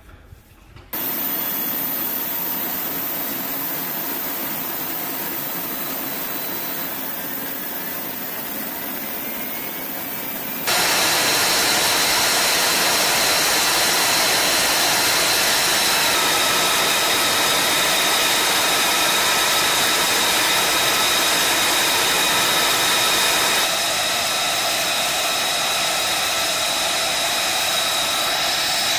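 F-35B Lightning II's F135 turbofan engine running on the ground: a steady jet roar with high whining tones over it. The level steps up abruptly about ten seconds in and shifts again twice later.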